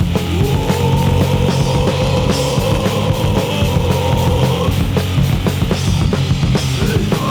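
Loud, fast punk rock recording by a full band with a drum kit. A held note sounds for the first four and a half seconds or so, then stops, while the drums and bass keep pounding.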